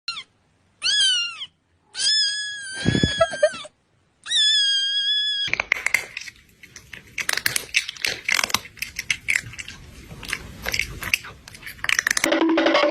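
A cat meowing four times, the third meow long and drawn out, followed by several seconds of irregular clattering and clicking noise. Music with a steady plucked beat comes in near the end.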